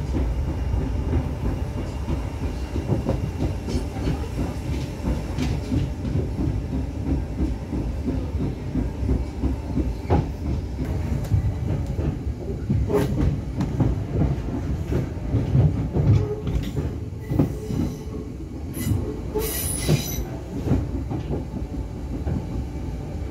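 Merseyrail electric passenger train heard from inside the carriage, rolling with a steady low rumble. From about halfway through, the wheels knock and clatter over points as the train crosses over to the correct line, with a brief high squeal near the end.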